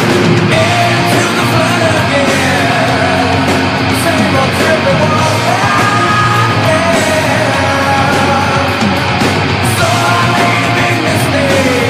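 Loud, dense rock music with shouted vocals, playing steadily as the podcast's opening theme song.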